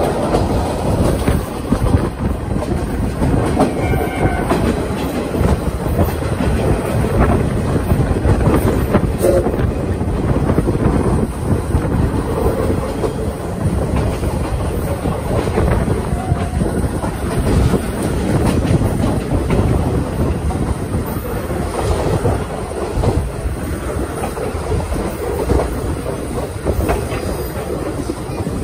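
Steam-hauled passenger train running along the track, heard from inside a coach: a steady rolling rumble with wheels clacking over the rail joints.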